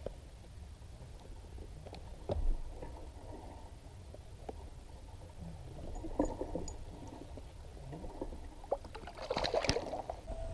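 Scattered knocks and clicks of fishing gear handled on a plastic kayak over a low rumble of water against the hull. A short splash beside the kayak about nine and a half seconds in.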